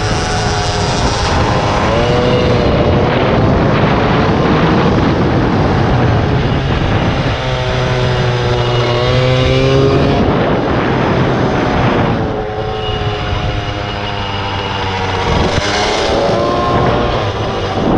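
Air-cooled 70 cc Polini minimotard engine revving up and down as the bike accelerates and slows for corners, its pitch climbing and dropping several times. The engine is heard from on board, over a steady rush of noise.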